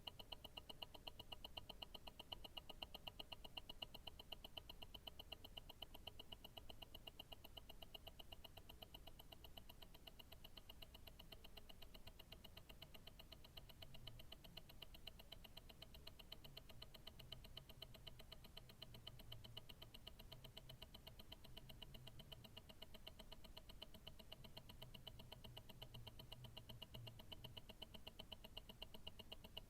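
Mechanical tourbillon watch movement ticking rapidly and evenly, heard faintly through a stethoscope. A faint low hum comes and goes in the second half.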